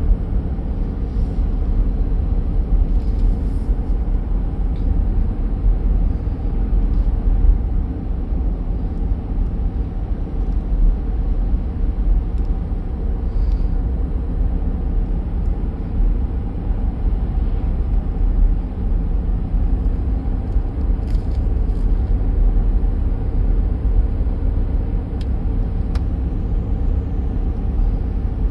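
A steady low rumble from a car driving along a road, heard from inside the cabin: engine and tyre noise.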